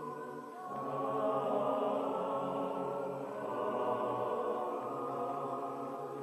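Background choral music: voices holding long sustained chords, moving to a new chord about a second in and again about halfway through.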